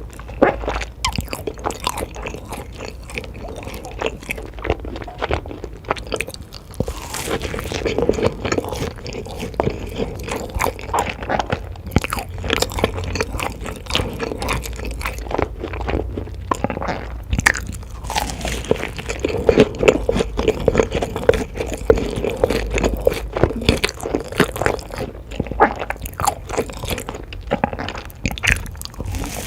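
Close-miked eating: crunchy bites and chewing, with many irregular crackles and clicks.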